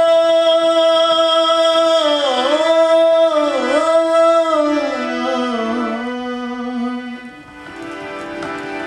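A singer holds a long high note over harmonium accompaniment, the voice wavering in ornamented dips, then sliding lower and fading about seven seconds in, leaving the harmonium's steady tones.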